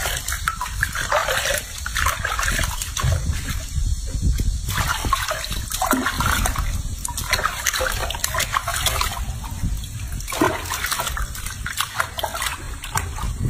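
Water splashing and sloshing in a sink basin as hands scoop water over a baby monkey and rub its wet fur, in a rapid, irregular run of small splashes.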